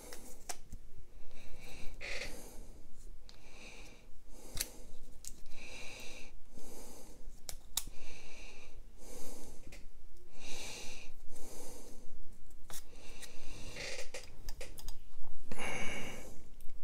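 A person breathing close to the microphone, one breath every second or two, with small clicks from metal and carbon fiber folding-knife parts being handled.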